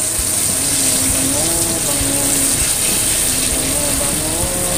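Batter-coated chicken deep-frying in hot oil in a wok: a steady sizzle. A tune runs underneath.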